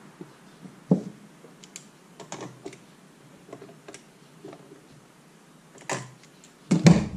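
Scattered light clicks and clinks of pliers and metal transmission parts being handled on a bench. There is a sharper knock about a second in and a louder clatter near the end.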